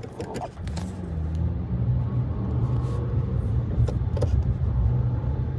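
Subaru Crosstrek driving, its engine and road noise heard from inside the cabin as a steady low rumble that grows louder over the first second or two and then holds.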